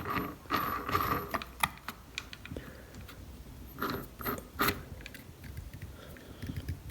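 Metal clicks and short clattering rattles of an angle grinder's cutting disc and flange nut being fitted onto the spindle by hand, coming in a few separate bunches.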